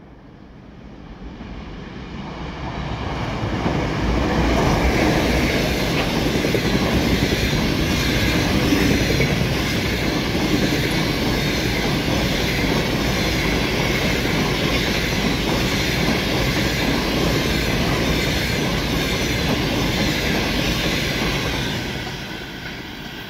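EP2K electric locomotive and its passenger coaches passing through a station without stopping, with the rush of the train and the clatter of wheels on rail. The noise builds over the first few seconds as the locomotive arrives, holds steady while the coaches go by, and drops off near the end as the last car passes.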